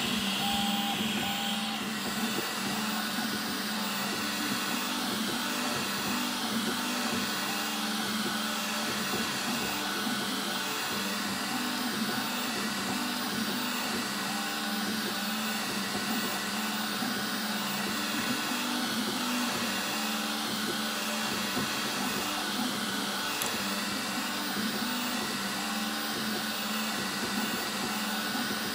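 FDM 3D printer printing: its stepper motors whine in tones that step and shift in pitch as the print head moves back and forth laying infill, over a steady fan whir.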